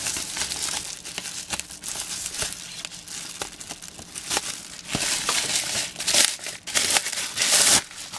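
Plastic bubble wrap crinkling and tearing as it is pulled off a small cardboard box by hand, with sharp crackles throughout. It grows louder in the last three seconds and stops abruptly just before the end.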